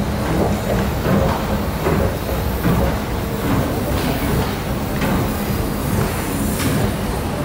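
A 1980s Mitsubishi late-model 'Espet' escalator running under a rider, a steady mechanical hum with faint irregular clicks from the moving steps.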